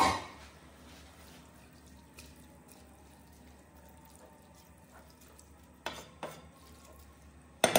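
Wooden spatula stirring rice noodles (bihon) into simmering soy-sauce broth in an aluminium pot, with faint wet stirring sounds. A sharp knock with a short ring sounds right at the start, and a few softer knocks come later.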